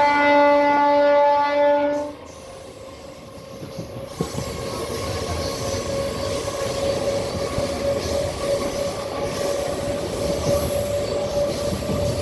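A train horn sounds once, loud and steady, for about two seconds, then cuts off. Afterwards the moving train's running noise builds, with a thin steady squeal from the wheels on the rails.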